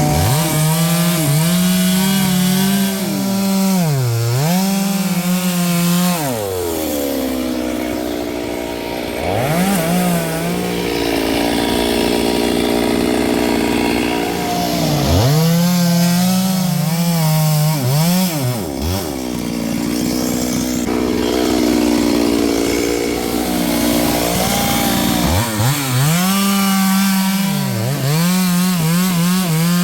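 Two-stroke chainsaw cutting wood at full throttle. The engine pitch drops again and again as the chain bogs down in the cut, and it settles to lower revs for several seconds twice before climbing back to full speed.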